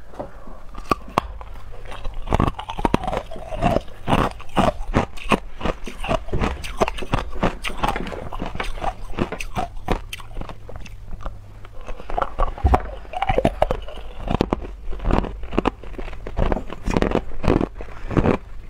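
Hard clear ice being bitten and chewed close to the microphone: dense, irregular cracking and crunching, several crunches a second.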